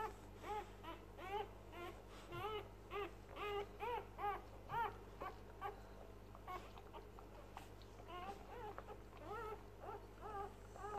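Newborn Springer Spaniel x Kelpie cross puppy squealing in a rapid string of short, high squeaks, each rising then falling in pitch, about three a second. The squeals grow fainter and more spaced out about halfway through.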